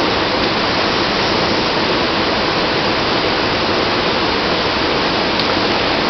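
Waterfall and fast white water rushing in a steady, even roar.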